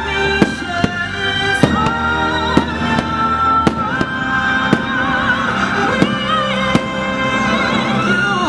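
Fireworks show: sharp firework bangs about once a second over the show's orchestral soundtrack, which carries a sustained, wavering melody.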